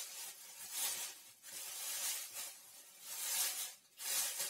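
A fork beating a soft cream in a bowl: repeated wet swishing and scraping strokes, about one a second, unevenly spaced.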